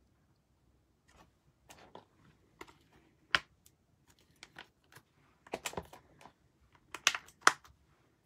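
Irregular clicks and taps of typing on a keyboard, a few a second, with a few louder strokes near the middle and near the end.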